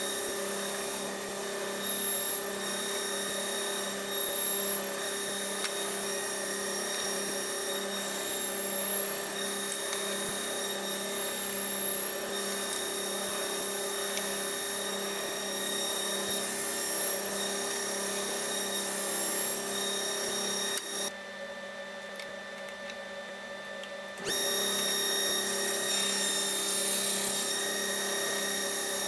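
Table saw motor running steadily with a constant hum. The hum drops out for about three seconds a little past twenty seconds in, then comes back at full level.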